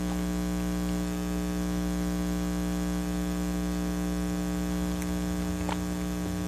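Steady electrical mains hum, a low buzz with several overtones, with a couple of faint clicks near the end.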